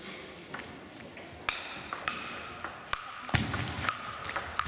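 Table tennis ball clicking off the bats and the table in a rally: a sharp click every half second or so.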